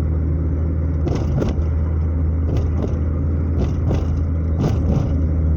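Chevrolet Chevy's exhaust, fitted with a bullet muffler and catalytic converter in place of the original resonator, giving a low, steady drone as the car drives slowly. Several short knocks come in pairs over it.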